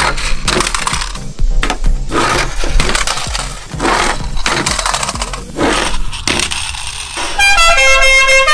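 Die-cast toy cars clattering and clacking as they are launched off plywood ramps and land on concrete, a run of sharp irregular knocks. About seven seconds in, a bright horn-like tune starts up.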